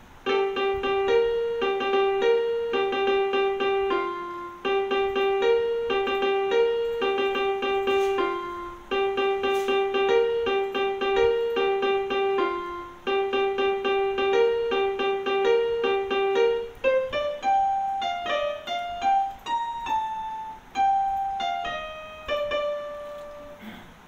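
Yamaha PSR-F51 portable keyboard played by hand, one note at a time: a short melody repeated four times, then a different, higher phrase for the last several seconds.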